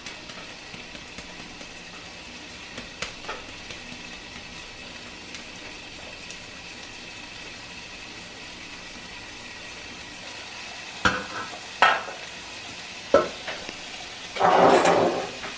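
Meat frying in a pan with a steady sizzle. Near the end come a few sharp knocks and a louder clatter lasting about a second.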